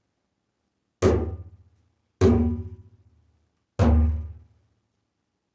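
Camel-skin bougarabou drum struck by hand three times, deep booming bass strokes, each ringing out and fading within about a second, at an uneven, unhurried pace.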